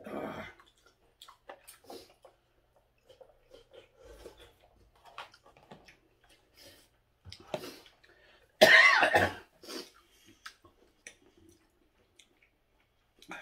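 A man eating noodles with chopsticks from a plastic takeout bowl: scattered small clicks and chewing noises, broken by a few coughs, the loudest and longest just under nine seconds in.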